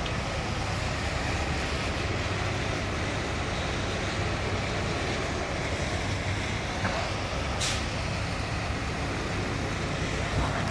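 Fire engines' diesel engines running steadily, a low hum under a broad hiss. A short sharp hiss about three quarters of the way in.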